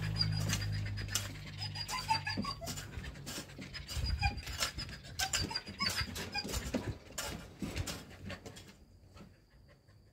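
Long-handled garden hoe striking and scraping into soil, short irregular strokes several a second that die away near the end. A low steady hum runs under the first couple of seconds.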